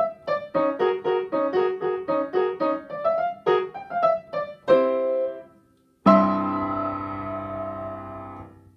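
Upright piano playing the closing bars of a piece: quick, short, detached notes, a briefly held chord, a short pause, then one loud final chord about six seconds in that rings and slowly fades before it is released near the end.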